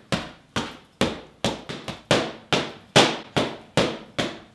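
Boxing gloves striking focus mitts in a steady run of punches, about two sharp smacks a second.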